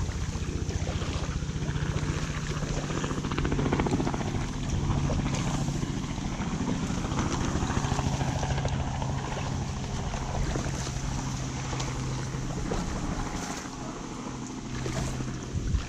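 Packraft being paddled through a narrow reed-choked channel: reeds and grass rustling and scraping along the inflatable hull, paddle strokes in the water, and wind on the microphone, over a steady low hum.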